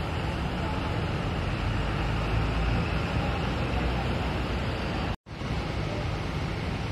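Coach engine rumbling as the bus pulls away across the terminal forecourt, over traffic noise. The sound drops out for an instant about five seconds in.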